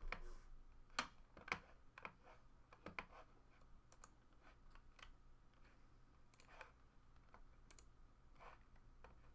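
Faint, irregular clicks and taps, a few sharper ones in the first two seconds, over a low steady hum.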